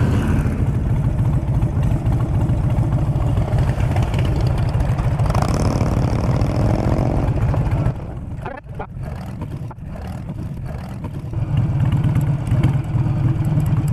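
Harley-Davidson V-twin motorcycle engine running as the bike rides along. The engine sound falls for about three seconds partway through, then rises again near the end.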